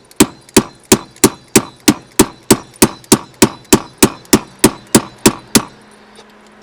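A quick, even series of sharp knocks, about three a second, as a slide-over shift-knob adapter is banged down onto a manual shifter lever. The knocks stop near the end.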